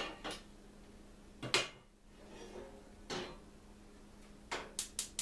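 A metal saucepan and utensils clanking on a gas range, then a quick run of even ticks, about five a second, near the end: the burner's igniter clicking as the simmer burner is lit.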